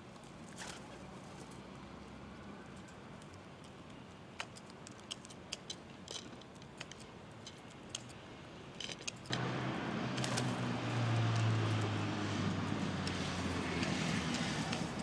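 Scattered light taps and clicks over a quiet background, then about nine seconds in a low engine hum comes in suddenly and runs on as the loudest sound.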